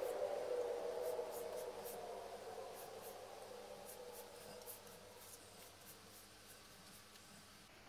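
Pastry brush bristles stroking water over a sheet of dry rice paper, a series of soft, irregular scratchy strokes that grow fainter toward the end.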